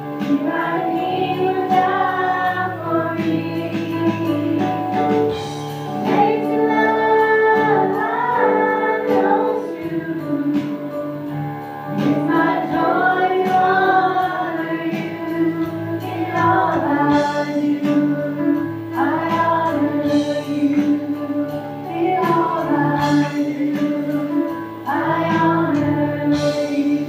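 Live worship music: several women singing a slow praise song together into microphones, accompanied by an acoustic guitar.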